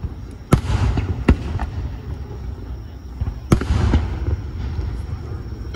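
Aerial fireworks shells bursting overhead: three sharp bangs, about half a second in, just over a second in, and about three and a half seconds in. Each is followed by a low rolling rumble, with a few smaller cracks between them.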